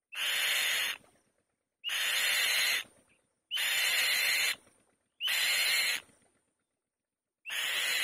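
An adult Elanus kite gives five harsh, rasping screeches, each about a second long and evenly spaced; the last runs on past the end.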